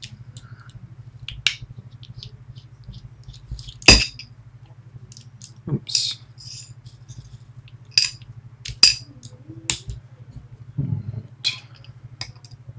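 Irregular sharp metallic clicks and clinks of small lock parts and tools being handled as a Medeco Biaxial lock cylinder is taken apart, the loudest about four seconds in and twice around eight to nine seconds in. A steady low hum runs underneath.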